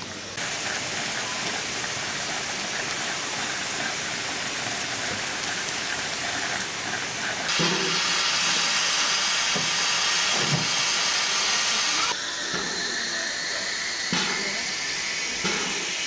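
Steam hissing from a standing Ivatt Class 2 tank locomotive, a steady hiss that jumps in level between shots and is loudest in the middle, when the engine is wreathed in steam.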